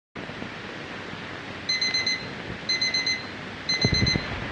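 Electronic alert beeping in short bursts of four or five rapid high beeps, about one burst a second, over a steady hiss; this is the attention tone of a simulated emergency alert. A few low thumps sound under the beeps near the end.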